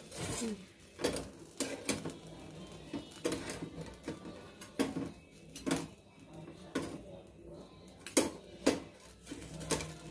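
A stainless steel spatula scraping and clinking against the wires of a hinged wire grill basket as it prises grilled fish off them: a dozen or so irregular sharp metal clinks.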